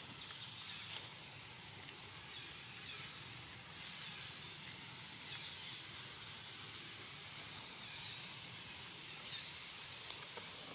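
Steady outdoor background hiss with a few faint short ticks.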